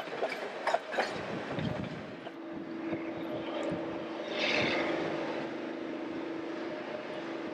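Railcar wheels clicking over the track joints on a wooden trestle for about the first second, then the steady drone of narrow-gauge diesel locomotive engines.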